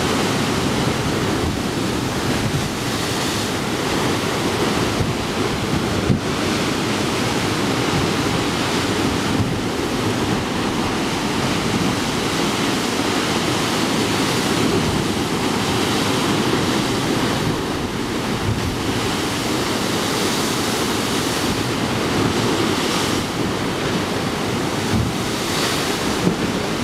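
Heavy storm surf breaking against a rocky shore and stone sea wall: a continuous rush of breaking waves that swells every few seconds as each wave crashes. Wind buffets the microphone.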